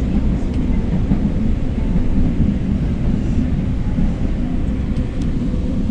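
Manila LRT Line 1 train car heard from inside while running, a steady low rumble of wheels on rails and running gear, as the train pulls into a station.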